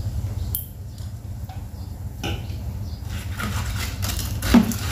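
Steady low rumble of an electric fan's air on the microphone, with a few light clinks of chopsticks and spoons against bowls and one brief louder thump near the end.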